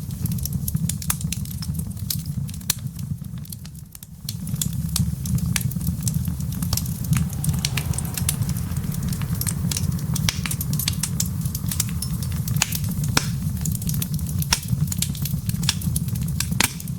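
Wood fire crackling with frequent sharp pops and snaps, over a steady low rumble that dips briefly about four seconds in.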